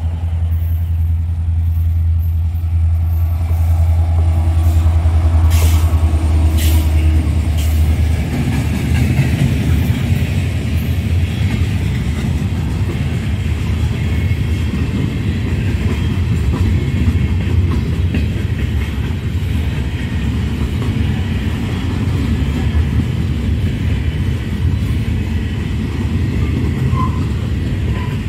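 A freight train passing close by. For the first several seconds the two EMD SD70ACe diesel-electric locomotives' engines give a deep, steady drone. After that, a long string of open-top freight cars rolls past with continuous wheel-on-rail rumble and clatter.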